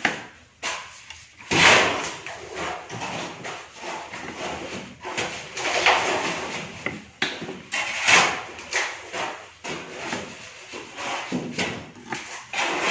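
Irregular knocks, scrapes and clatter of kitchen containers and utensils being handled while food is prepared by hand.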